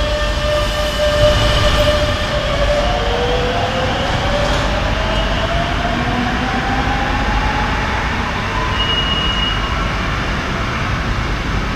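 Madrid Metro Serie 9000 electric train pulling out of the station, its traction motor whine rising steadily in pitch over a constant rail rumble.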